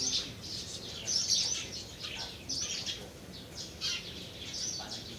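Birds chirping: a steady run of short, high calls that overlap and follow one another throughout.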